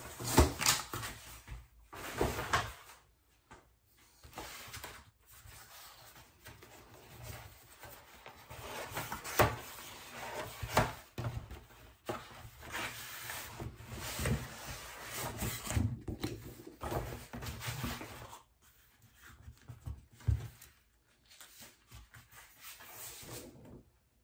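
Stiff cardboard packaging handled on a wooden tabletop: sheets of cardboard rubbed, flapped, folded back and set down, with a large paper print slid out from between them. Irregular rustling and scraping with a few sharp knocks, quieter near the end.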